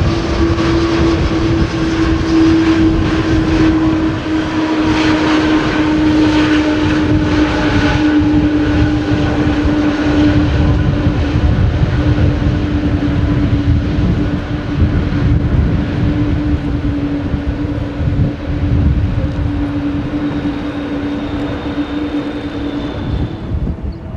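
Boeing 777 airliner's jet engines during the landing rollout: a loud steady drone with a strong tone that slowly falls in pitch and stops near the end. Heavy wind buffets the microphone throughout.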